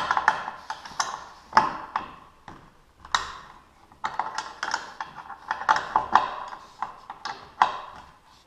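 Hand tools clinking and clicking against the metal hardware of a garage door opener's drive chain: irregular sharp metallic clicks in quick clusters, with short pauses, dying away near the end.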